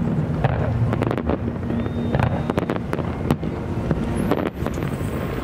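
Fireworks display: repeated bangs and crackling of bursting shells over a steady low rumble, with a short thin whistle or two.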